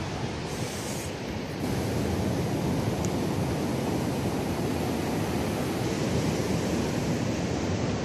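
Steady noise of ocean surf breaking on a sandy beach, mixed with wind on the microphone; it grows a little louder about a second and a half in.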